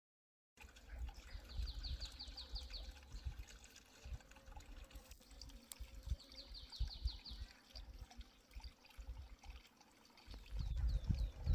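A songbird singing two fast trills of quickly repeated falling notes, several seconds apart, over a low, uneven rumble.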